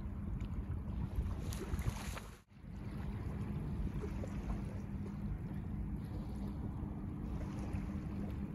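Wind buffeting the microphone in a steady low rumble, with a faint wash of small waves on a flat shore. The sound drops out for a moment about two and a half seconds in.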